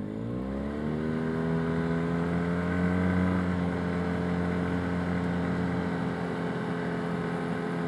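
Arctic Cat Wildcat Trail UTV engine picking up revs in the first second, its pitch rising, then running steadily at trail-riding speed.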